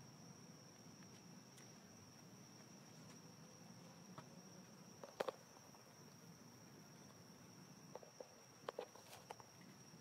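Near silence, with a faint steady high-pitched insect trill running throughout and a few soft clicks about five seconds in and again near the end.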